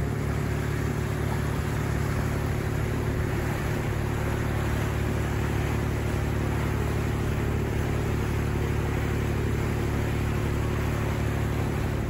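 Nordhavn 40 trawler under way: the steady drone of its diesel engine with the rush of the churning wake behind the stern.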